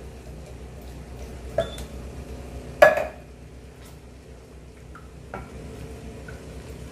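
Coconut milk poured from a can into a steel pot of tomato sauce, with one sharp knock on the pot about three seconds in and a few lighter clinks, then a wooden spoon stirring the sauce.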